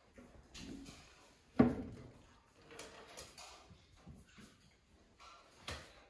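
Several knocks and thumps with soft scuffling between, the sharpest and loudest about one and a half seconds in and another shortly before the end.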